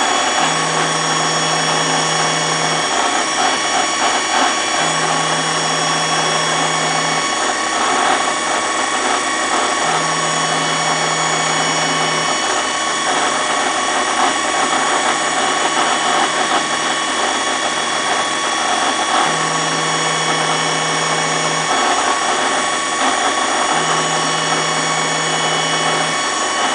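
Jetmatic CNC knee mill running a program: a loud, steady machine whine with many steady tones, and a low hum that switches on for about two seconds at a time, five times, with gaps of about two seconds between.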